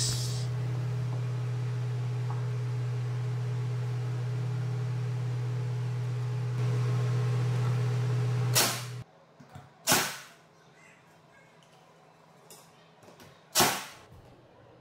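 Makita cordless brad nailer firing three times, driving brads into a beech floor plank: sharp clacks about eight and a half, ten and thirteen and a half seconds in. Before the shots there is a steady low hum, which cuts off abruptly just after the first one.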